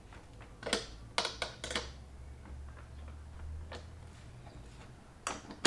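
Sharp clicks and clinks of a small hand tool working metal bracket hardware on a plastic fuel tank. They come irregularly: a quick cluster of four about a second in, a single one near four seconds, and two more near the end.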